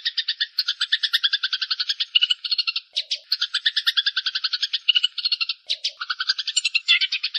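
Eurasian tree sparrows (burung gereja) chattering in a fast, dense run of harsh chirps, about ten a second, the excited calls of sparrows fighting. Two brief breaks, near the middle and near the end, each open with a sharp note.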